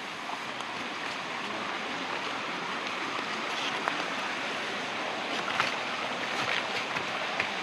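Steady rushing of a waterfall and stream.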